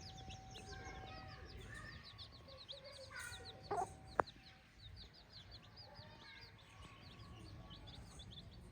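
Free-range chickens clucking, over a constant chatter of many high, quick chirps. A louder call comes about three and a half seconds in, followed by a single sharp click.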